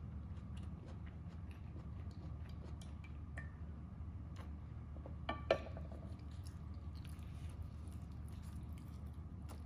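Close-miked eating sounds: quiet chewing and small mouth clicks over a steady low hum, with one brief louder click that rings for a moment about five and a half seconds in.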